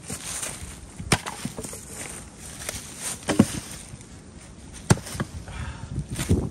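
Fiskars X27 splitting axe chopping into firewood rounds, about four sharp strikes roughly one and a half to two seconds apart, splitting the logs where they lie.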